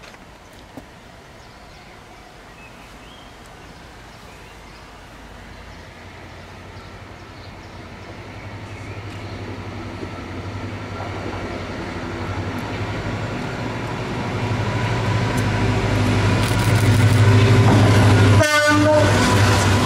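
Class 59 diesel locomotive with its two-stroke EMD V16 engine hauling an aggregates freight train as it approaches and passes. The low engine hum grows steadily louder, with a short horn-like tone near the end.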